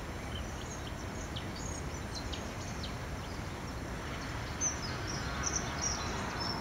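Outdoor wetland ambience: a steady low rumble with small birds chirping in short high notes, more of them in the second half.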